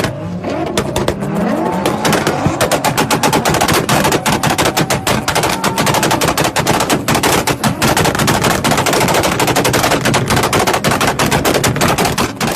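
A car engine revving up, its pitch rising over the first two seconds, then a long run of rapid, loud exhaust pops and bangs, many per second.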